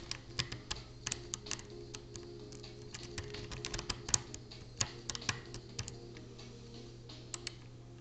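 A hook pick and tension wrench working in the keyway of a Mauer MLS euro-profile cylinder lock: quick, irregular metallic clicks and ticks from the pick and pins, thickest in the middle and thinning to a last pair near the end.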